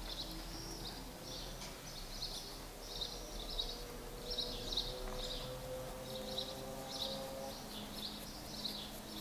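Small birds chirping over and over, faintly.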